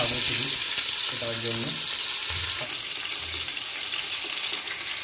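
Masala-marinated rohu fish steaks sizzling steadily as they shallow-fry in hot oil in a pan, a piece having just gone in.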